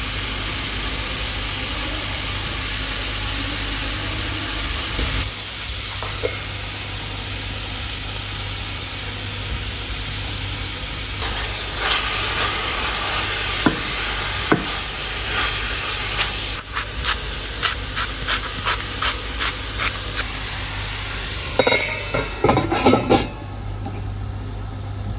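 Turkey meat sizzling in a frying pan. From about two-thirds of the way in, a utensil scrapes and taps against the pan in quick short strokes as the meat is stirred.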